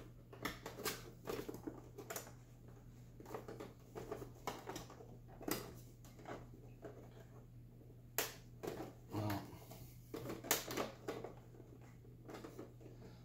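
Hands pressing and tugging at the plastic side cover of an XYZ Da Vinci 3D printer: irregular clicks, creaks and knocks of plastic as the cover, still held by a latch tab not yet released, resists coming off.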